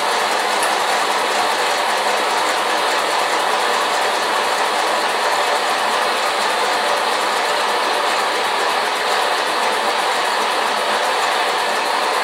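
Small live-steam model engine running steadily and driving a belt-driven Meccano model, a rapid, even mechanical clatter over a steady hiss. Its boiler is not quite making enough steam.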